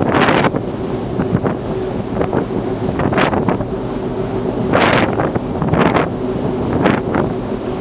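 Wind buffeting the microphone in repeated gusts, over a steady low hum.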